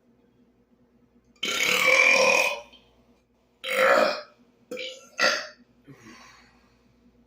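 A man burping on purpose: one long, loud belch about a second and a half in, a shorter one about two seconds later, then two quick short burps.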